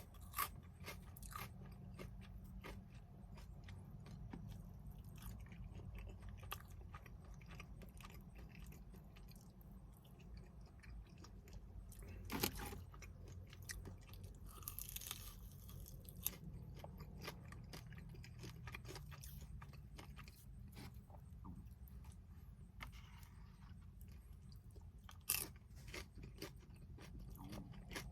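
A person chewing and biting food close to the microphone, with crisp crunches and small wet mouth clicks. A few louder sharp bites or clicks stand out, over a faint steady low hum.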